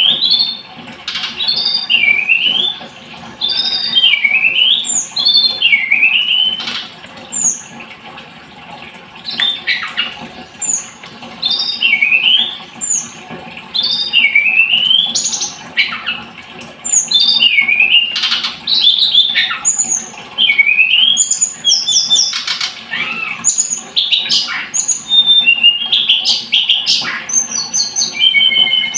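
Tledekan gunung songbird singing: loud repeated swooping whistles that dip and rise again, each phrase a second or so long, laced with sharp high notes. The phrases come quicker and more varied, with rapid clicking notes, from about two-thirds of the way in.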